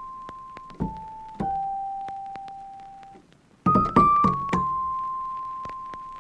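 Background music of slow single notes that strike and ring out, fading away, with a quick run of several notes about four seconds in.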